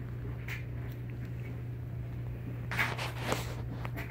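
Soft rustling of bedding and fabric as a cat plays on a bed, over a steady low hum. There is a brief rustle about half a second in and a longer stretch of rustling about three seconds in.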